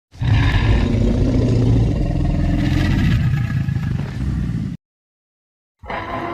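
Tyrannosaurus rex sound effect: one long, deep, rough call lasting about four and a half seconds that cuts off suddenly. After a second of silence, another effect with steady tones begins near the end.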